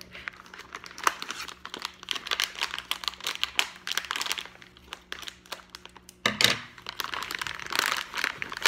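Shiny plastic toy blind-bag pouch crinkling and crackling as it is handled and cut open with scissors, with a louder crackle about six seconds in.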